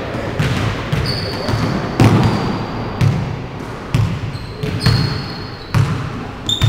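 Basketball being dribbled on a hardwood gym floor, bouncing roughly once a second, with sneakers giving short high squeaks on the wood.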